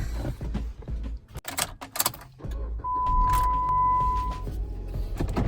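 Car interior: a few clicks and knocks, then a steady electronic chime from the dashboard starting about three seconds in and lasting about a second and a half, over the car's low rumble.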